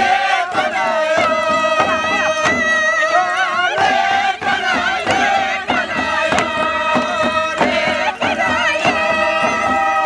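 A group of voices singing a chant over steady beats of hand-held kundu drums.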